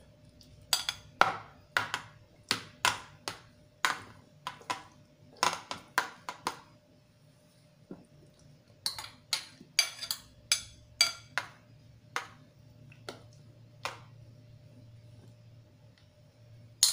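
A metal spoon clinking and tapping against a small glass bowl as cut mango pieces are scraped out into a pudding mould: a string of sharp clinks, about two a second, pausing for about two seconds midway before starting again.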